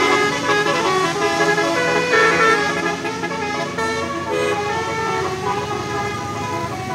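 Telolet horns of two buses sounding together: multi-tone bus air horns playing a melody in stepped, held notes that overlap one another.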